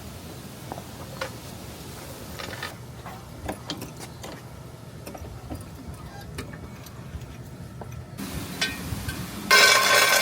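Scattered metallic clicks and ticks of hand tools being worked, with a short, loud burst of hiss near the end.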